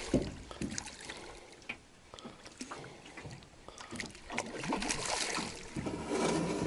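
Irregular water splashing and small knocks on a boat as a hooked wild carp (sazan) is played on a reelless pole rod. The activity grows busier and louder over the last couple of seconds.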